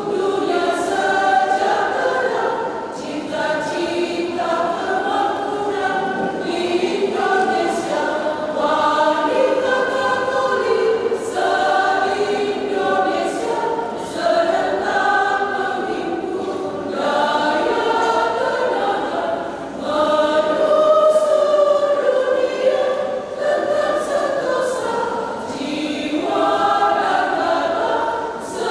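Women's choir singing in several parts, in sustained phrases with brief breaks between them.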